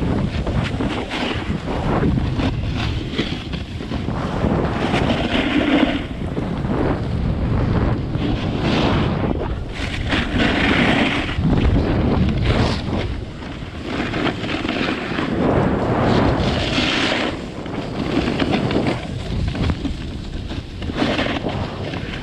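Wind buffeting the microphone while snowboarding downhill, with a snowboard's edges hissing and scraping over the snow in swells about a second long as it carves.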